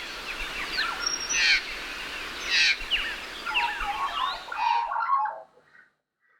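Australian magpie carolling: a busy run of warbled, gliding and harsh notes that stops about five seconds in.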